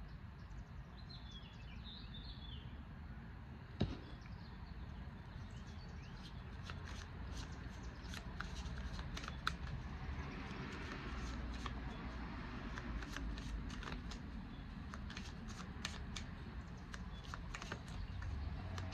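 A deck of tarot cards shuffled by hand: a quick run of soft card flicks and rustles from about six seconds in, over a steady low background rumble.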